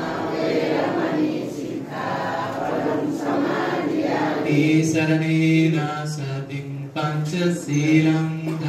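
A group of voices chanting Buddhist verses together, settling about halfway through into long notes held on one steady pitch.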